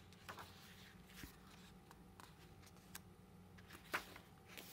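Quiet handling of an album photobook: soft paper rustles and light taps as pages are turned, with a sharper rustle about four seconds in.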